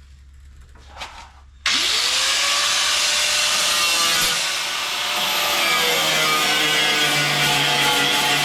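An electric power tool is switched on about a second and a half in. It spins up with a short rising whine, then runs loud and steady with a harsh, rasping noise.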